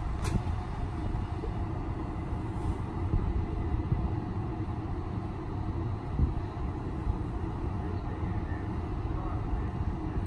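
Metro-North M7A electric multiple unit standing at a station platform, its onboard equipment running with a steady low rumble.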